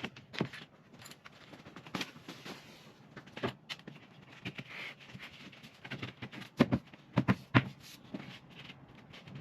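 Scattered knocks, taps and clicks from handling plywood cabinet panels, brackets and screws during assembly, with three sharper knocks close together about two-thirds of the way through.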